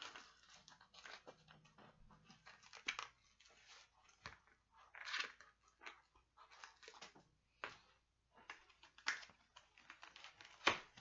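Packing tape and cardboard of a heavily taped shipping box being picked at, scraped and torn by hand: irregular crackling and scratching, with a sharp crack near the end.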